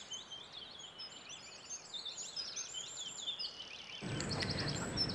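Birds chirping faintly over quiet outdoor ambience: many short, quick, high chirps. About four seconds in, a steady background hiss comes up under them.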